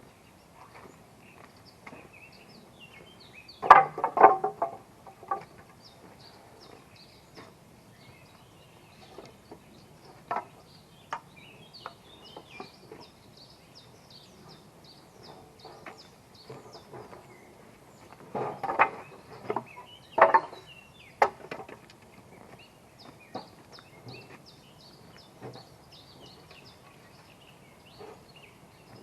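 Knocks and clatter of building materials being handled, in two short bursts about four seconds in and again around eighteen to twenty-one seconds, with a few single knocks between. Small birds chirp faintly throughout.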